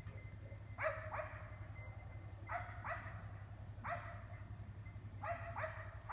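A distant dog barking repeatedly: seven sharp barks, some single and some in quick pairs, a second or so apart, over a steady low hum.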